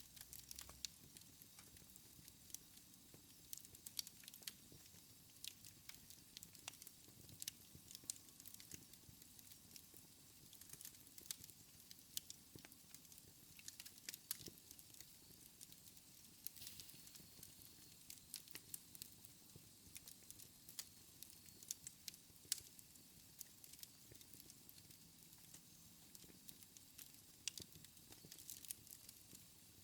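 Wood fire in a fireplace crackling faintly: irregular sharp pops and snaps, several a second at times, over a low steady hiss.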